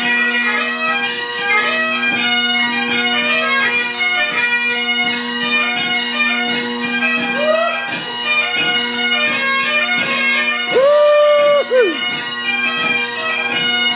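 Highland bagpipes played by several pipers: steady drones under the chanter melody. About eleven seconds in, a louder held tone with a sliding start and end rises over the pipes for about a second.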